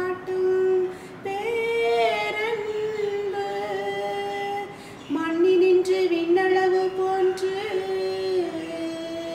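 A woman singing a slow hymn in long, held notes, pausing briefly for breath about a second in and again near the middle.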